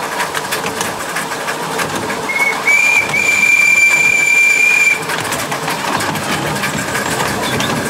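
A 7¼-inch gauge miniature steam locomotive running along with a steady rapid clatter; a little over two seconds in, its steam whistle gives a short toot and then one long, steady high blast of about two and a half seconds.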